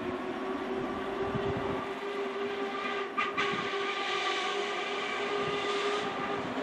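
A steam locomotive whistle sounding one steady note for about six seconds from the double-headed LMS locomotives 46233 Duchess of Sutherland and 45690 Leander as they approach at speed, over the rumble of their exhaust. A short sharp crack or clank cuts in a little after three seconds.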